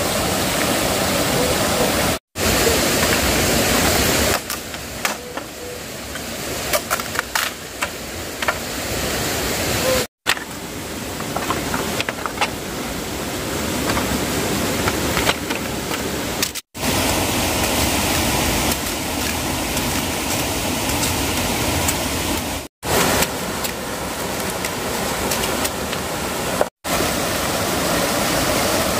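Steady rush of flowing stream water, with a few faint ticks between about 5 and 10 s in. The sound drops out briefly five times at cuts in the edit.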